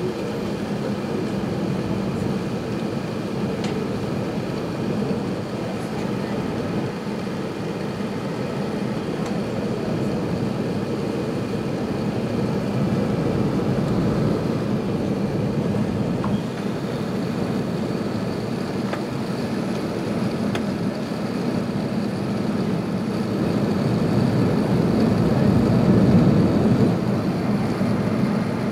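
Steady cabin noise inside an Airbus A380 in flight after take-off: the even rush of engine and airflow heard from a window seat, swelling slightly about 25 seconds in.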